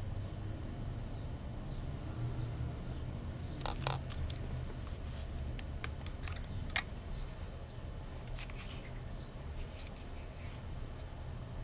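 Scattered light clicks and ticks in small clusters, about four, six, eight and a half and ten seconds in, over a low steady hum.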